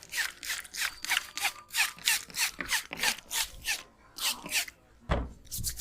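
Barber's hands rubbing briskly over a customer's hair and scalp in quick strokes, about four or five a second, pausing briefly before a few more strokes and a heavier one with a dull thud near the end.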